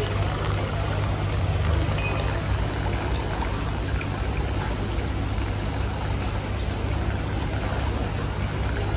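Water splashing and bubbling steadily in aerated live-seafood tanks, over a steady low hum.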